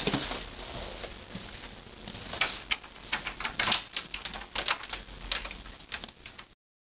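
A quick, irregular series of sharp clicks and taps, several a second, starting about two seconds in; the sound cuts off abruptly to dead silence near the end.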